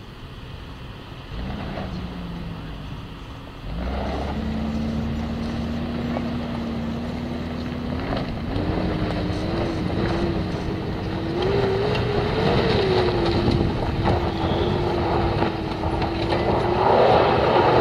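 Lifted Nissan SUV's engine pulling up a steep, loose dirt hill. The note holds steady for a few seconds, then climbs and wavers higher as the revs rise under load. Near the end comes the loudest part: a rough rush of tyres spinning and scrabbling on the gravel.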